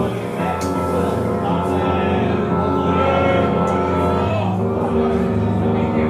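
Live band music played loud, with steady held chords over a deep bass note that changes about four seconds in.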